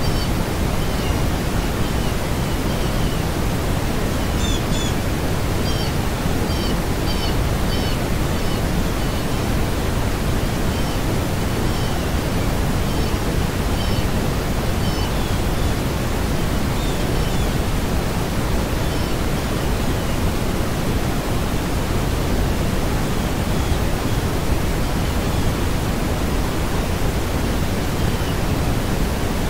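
Steady, loud rushing noise that does not change, with short faint high chirps repeating through the first half or so.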